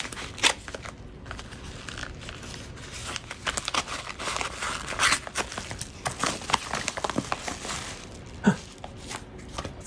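Padded paper mailer being slit open with a knife blade and pulled apart: crinkling, rustling and tearing of the envelope with scattered small clicks, and a single thump near the end.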